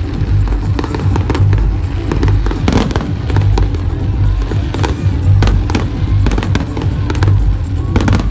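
Fireworks going off in rapid, irregular cracks and bangs over music with a steady bass beat.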